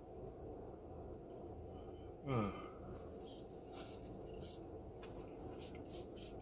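A person chewing French fries, with a run of small crisp crunches from about three seconds in, over the steady hum of a car's air conditioning. About two seconds in there is a short vocal "mm" that falls in pitch.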